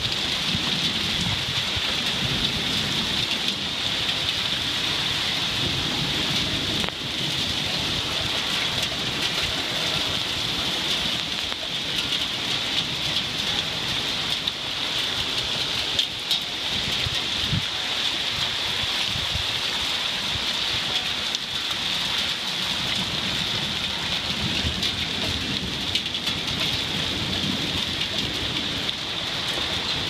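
Heavy rain pouring steadily in a strong thunderstorm, a dense even hiss, with low thunder rumbling underneath at times and a single sharp tap about halfway through.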